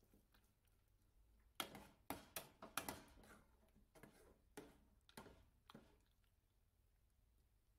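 A metal ladle clinking against the side of an aluminium pot while scooping egg and onion in broth: a quick run of sharp clicks about a second and a half in, then a few single clicks.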